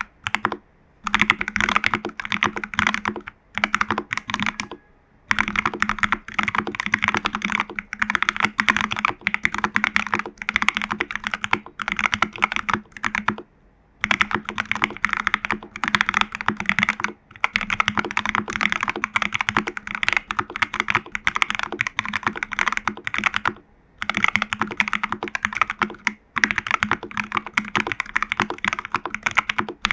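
Typing on a TU40 plastic-case mechanical keyboard with lubed Jelly Black switches, case foam, PCB foam and a tape mod, and XMI Cyrillic Red keycaps: steady runs of fast keystrokes broken by brief pauses every few seconds.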